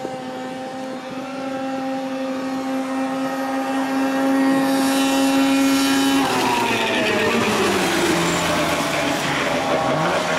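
Engines of 6x6 ATV drag racers at full throttle, holding one steady high note for about six seconds. Then, after a cut, a rougher, noisier engine sound whose pitch falls as the machines run away down the track.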